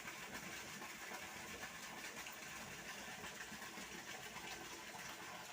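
Faint, steady rush of water pouring from a canal lock gate into the channel below.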